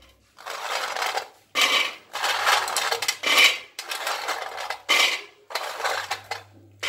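Crisp sesame-and-jaggery revdi clattering against stainless steel plates as they are scooped up and dropped by the handful, in about seven short bursts. The hard, dry rattle is the sign that the revdi have set crisp.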